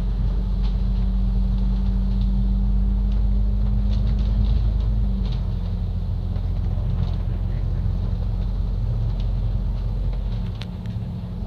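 Double-decker bus engine and drivetrain running with a steady low drone, heard inside the bus, with faint scattered ticks and rattles. The engine note drops slightly about five seconds in.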